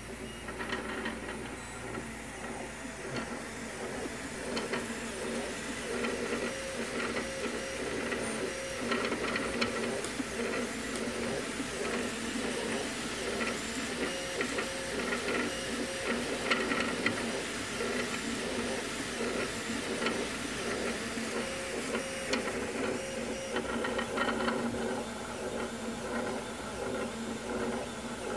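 Wanhao Duplicator i3 Plus 3D printer at work early in a print: its stepper motors whine in short, shifting tones as the print head and bed move, over the steady whir of its cooling fans.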